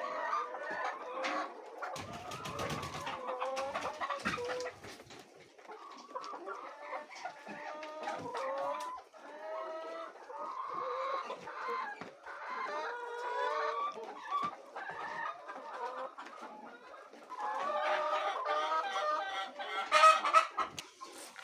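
Chickens clucking almost without a break, with a few sharp knocks about two seconds in and a louder burst of knocks near the end.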